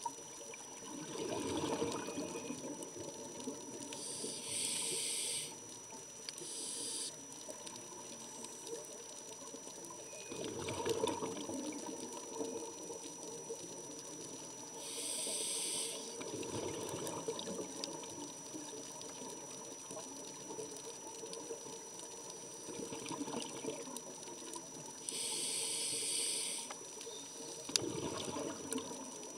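A scuba diver breathing through a regulator, heard underwater: a hissing draw of air on each inhale, and a rumble of bubbles on each exhale, in a slow cycle of about three breaths.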